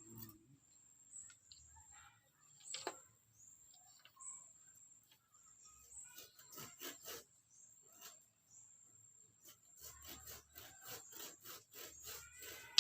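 Faint scattered knocks and clicks of bamboo being handled and tapped, coming in clusters around the middle and near the end, over a faint steady high whine.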